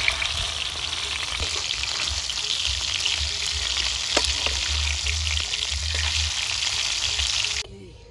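Fish steaks sizzling in hot oil in a frying pan, a dense steady crackling hiss with a few light taps of a metal spatula. The sizzling cuts off suddenly near the end.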